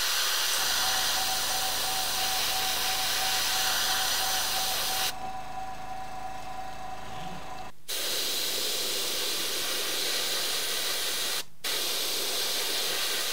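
Gravity-feed airbrush spraying paint: a steady hiss of air and paint. It stops for a couple of seconds about five seconds in and again briefly near the end.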